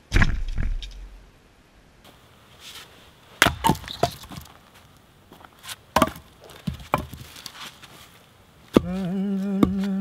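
A load of logs tumbling off a wooden A-frame back-carrier onto the ground with a heavy thud. Then an axe splitting firewood, about six sharp chops with split pieces knocking together. Near the end a sustained, wavering pitched tone comes in.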